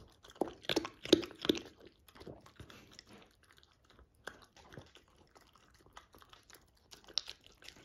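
Dog crunching dry kibble from a bowl: irregular bites and chews, loudest in a cluster about a second in.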